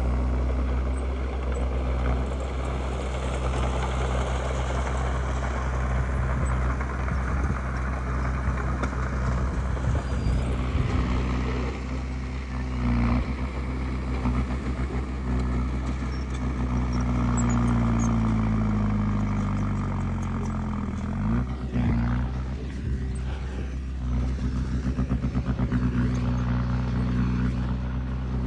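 Diesel engine of a Komatsu D20P crawler bulldozer running steadily under work. Its pitch sinks and then climbs again about two thirds of the way through, and a quick rattle follows near the end.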